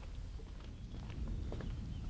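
Footsteps on a timber boardwalk: irregular knocks of shoes on the wooden boards, over a low steady rumble.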